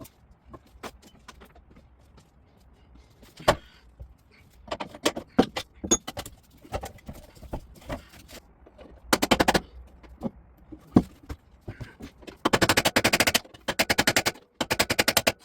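Scattered knocks and clinks of metal tools and parts, then from about nine seconds in several runs of rapid, evenly spaced mechanical clicking, each lasting about half a second to a second.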